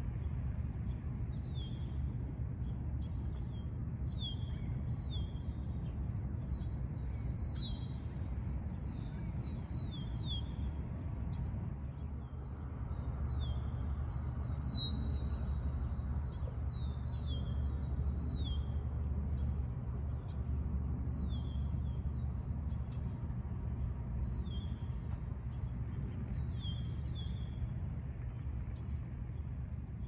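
Birds chirping: many short, high, falling chirps, a little apart, over a steady low rumble.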